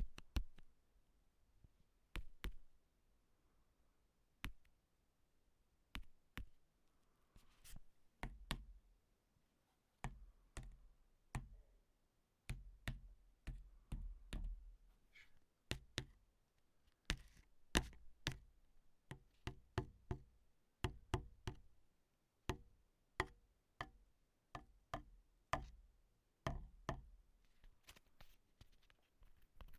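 Foley tapping: a long series of sharp taps and knocks on a hard surface, irregularly spaced and often in quick pairs or clusters. From about eight seconds in, many of the taps carry a deeper thud.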